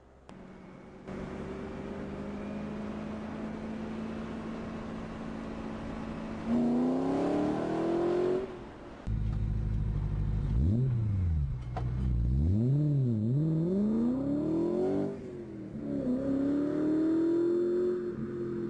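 BMW E92 M3's V8 engine running at a steady cruise, then revving up strongly. After a sudden cut it turns louder, its revs climbing and dropping back several times as it is driven hard, before stopping abruptly near the end.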